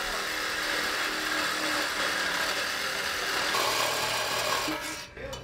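Reciprocating saw cutting through a metal exhaust pipe, a steady harsh buzz of blade on metal that stops near the end. The cut frees the stock exhaust valve so it can be moved onto the aftermarket exhaust.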